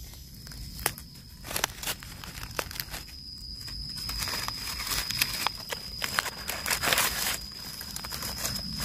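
Dry leaf litter crackling and rustling as a hand works through it to pick mushrooms from the forest floor, with irregular small clicks and crunches.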